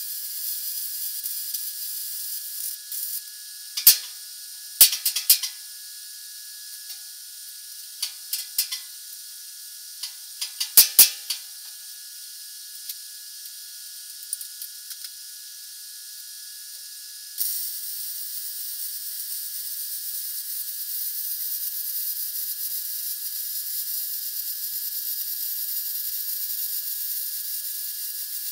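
Hobart Handler 190 MIG welder arc-welding steel with a steady high sizzle that stops about three seconds in. A scattered run of sharp metallic knocks and clicks follows, then the welding sizzle starts again about seventeen seconds in and runs on.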